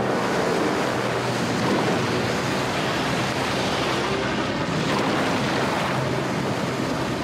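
Cartoon sound effect of a huge flood wave of water rushing down: a dense, steady rush of surging water that starts abruptly.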